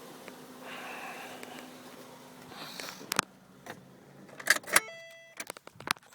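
A low steady hum, then a run of sharp clicks and clunks from about three seconds in, with keys jangling and a brief chime near the end, as when a car's key is handled and a door is worked.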